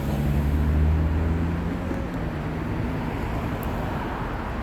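Road traffic noise, with one vehicle's engine humming low and steady, loudest about a second in and fading away about two seconds in.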